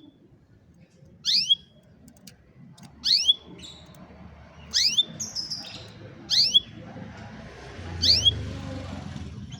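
Domestic canary giving a short, sharp chirp five times, about every second and a half, each one a quick sweep down then up in pitch.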